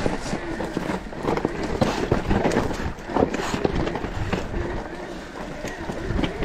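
Mountain bike riding down a rough, rocky enduro trail: tyres on loose stones, with a dense run of irregular knocks and rattles from the bike.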